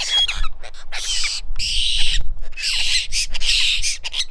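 Birds giving harsh, screeching calls over and over, about two a second and partly overlapping, over a low rumble.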